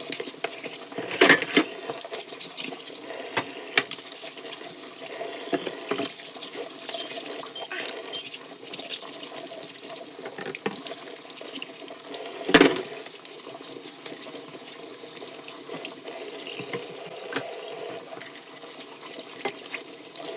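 Warm water running from a kitchen tap into the sink while bottles are scrubbed under it with a scourer, with a few knocks, the sharpest about twelve seconds in.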